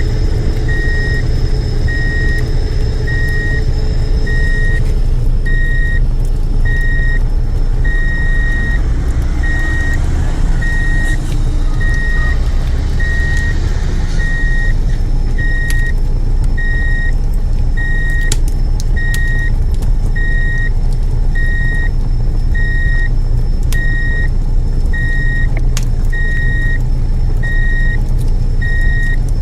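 Heavy truck engine running steadily with a reversing beeper sounding about one and a half times a second, and a few sharp clicks in the second half.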